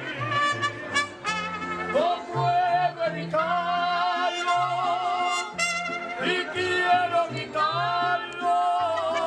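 Mariachi band playing a song live. Violins, trumpet and guitars play over plucked low bass notes, and band members sing the melody.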